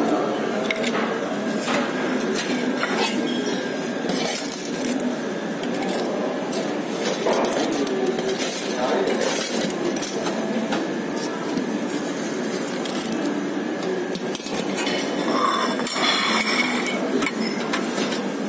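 Cutlery and dishes clinking during a restaurant meal, with short sharp clinks throughout over a steady murmur of voices.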